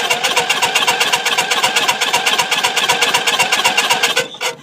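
Small single-cylinder lawn tractor engine cranking and firing in a fast, even chug, about eight strokes a second, then cutting out abruptly about four seconds in. It runs only on a little gas primed into the carburettor, a sign of a fuel delivery problem.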